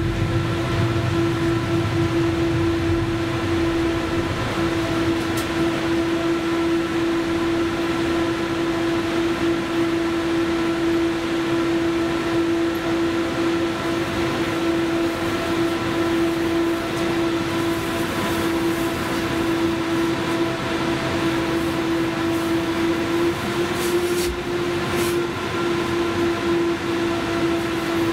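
Steady electrical hum from the onboard equipment of a 71-911EM 'Lvyonok' low-floor tram, one strong tone with several fainter higher tones over it. The tram is almost at a standstill, and a low rumble dies away in the first few seconds.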